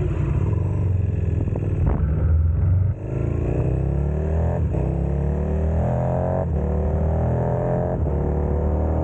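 KTM 1290 Super Adventure's V-twin engine through a Wings aftermarket exhaust, running with a deep low note, then accelerating up through the gears. Its pitch climbs, drops briefly at each upshift and climbs again, four shifts about one and a half seconds apart.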